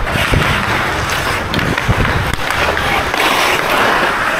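Ice hockey skate blades scraping and carving on the ice in strides, heard close up, with a few sharp knocks.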